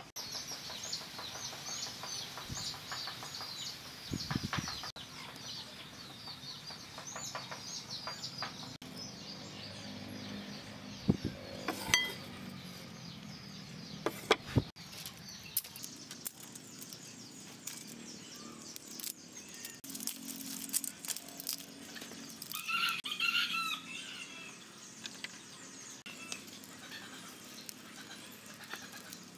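Small birds chirping, thickest in the first few seconds, with a chicken calling later on and a few scattered knocks.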